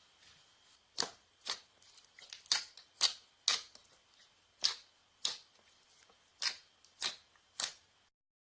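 Slime played with by hand, giving about ten sharp pops at an uneven pace of roughly one or two a second, as air pockets in the slime burst.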